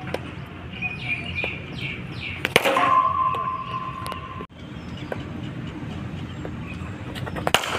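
Cricket ball struck by a bat in the practice nets: one sharp crack a couple of seconds in, followed by a steady high tone for about a second and a half. Another pair of sharp knocks near the end.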